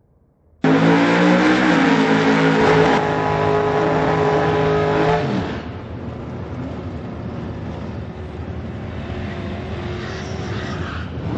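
Willys coupe drag car's engine held at high revs through a burnout. It cuts in suddenly and runs steady for about five seconds, then drops back to a lower, rougher run.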